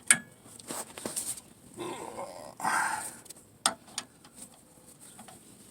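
Hand tools clinking and knocking against metal while the hub mounting bolts are tightened, with a short rasping sound about two seconds in.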